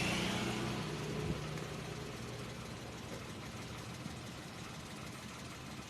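Car engine idling, a faint steady low hum.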